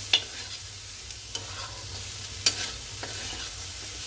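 Metal spatula stirring and tossing chicken fried rice in a hot kadhai, over a steady sizzle of frying. Three sharp knocks of the spatula against the pan stand out, the loudest just after the start and another strong one about two and a half seconds in.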